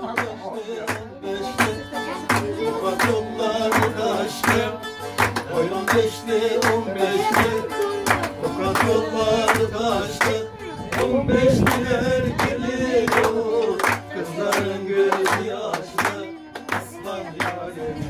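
Bağlama (saz) playing a lively folk dance tune with a man singing, over steady hand clapping at about two claps a second.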